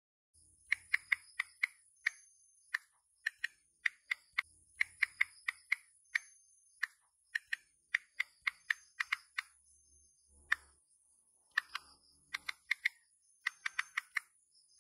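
Smartphone on-screen keyboard key-click sounds as a message is typed: quick runs of short, sharp clicks, several a second, broken by brief pauses.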